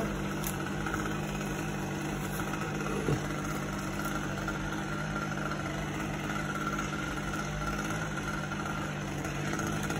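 An engine idling steadily, with a brief falling squeak about three seconds in.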